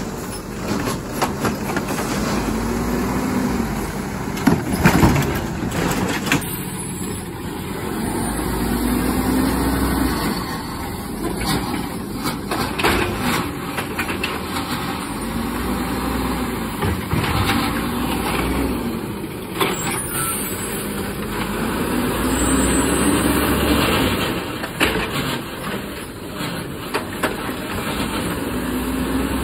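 Garbage truck engine revving up and down several times, the revs driving its hydraulics as it packs trash. Scattered knocks and clatter, the loudest about five seconds in.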